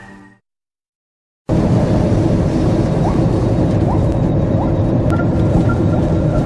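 Music fading out, then about a second of silence, then steady road and wind noise from inside a moving vehicle driving along an asphalt road.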